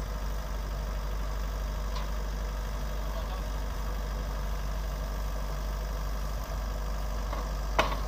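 Farm machine's engine idling steadily, with a single sharp knock near the end.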